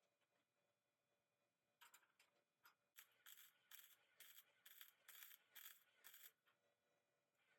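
Faint rhythmic scraping strokes, about two or three a second, starting about three seconds in after a few light clicks.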